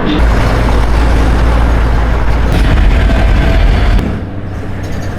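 6.5-litre diesel pickup truck running on the road: a strong, steady low drone that drops abruptly to a quieter, thinner sound about four seconds in.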